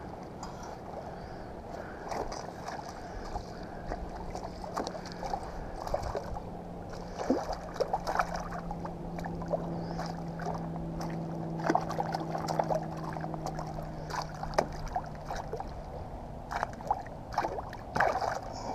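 A hooked smallmouth bass splashing at the surface beside a kayak as it is reeled in and brought to hand, with scattered short splashes and clicks. A steady low hum runs underneath and fades out about fifteen seconds in.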